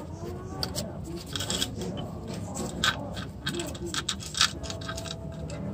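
Irregular light metallic clicks and scrapes of hands working loose parts inside an open Suzuki Raider 150 engine case, around the timing chain and its guide.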